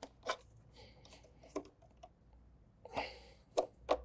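Scattered light clicks and taps of a screwdriver tightening the hose clamps on a car's air intake duct, with a brief rustle about three seconds in.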